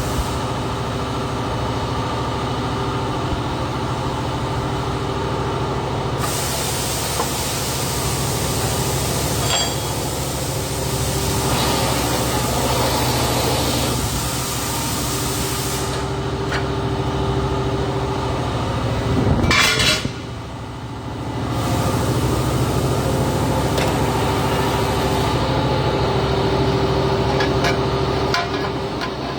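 Robotic welding cell working: a steady machine hum with the welding arc hissing and crackling in long stretches, one of them from about six seconds in to sixteen and another later, and a brief loud burst just before twenty seconds.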